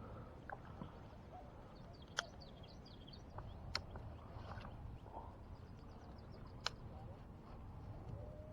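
Faint birds chirping over steady low outdoor background noise, with three sharp clicks about two, four and seven seconds in.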